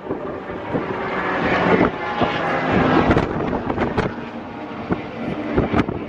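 Car engine running, with wind on the microphone.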